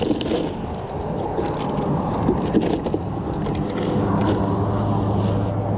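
Road traffic: a steady rush of noise with a low engine hum that grows louder from about halfway through as a vehicle approaches. There are a few light plastic knocks near the start as the cooler lid is handled.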